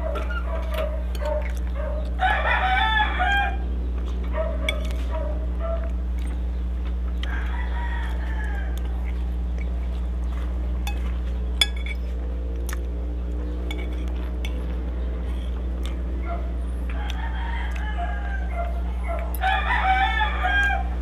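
Roosters crowing four times: a loud crow a couple of seconds in, another around the middle, and two close together near the end, over a steady low hum. Sharp clinks of a metal spoon and fork on a plate, one louder near the middle.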